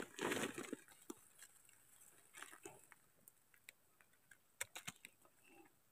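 Faint, scattered ticks and small rustles of hands handling wild mushrooms among dead leaves while a knife cuts through the mushroom stems.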